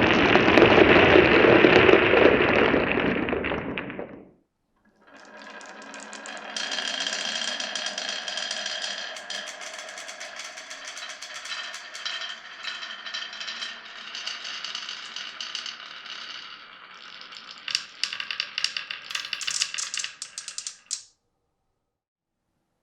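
Glass marbles rolling and clattering along a wooden marble run: a loud rolling run for the first four seconds, then after a short break a longer, quieter rattling run with ringing tones, ending in a quick burst of clicks before it stops.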